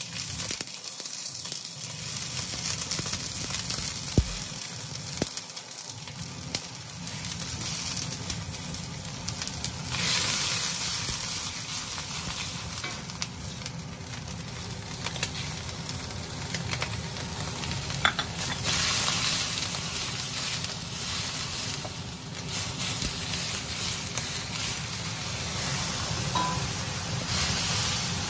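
Sizzling in a hot wok as soy sauce and then chopped spring onions go into the oil, with a wooden spatula stirring; the sizzle gets louder about a third of the way in.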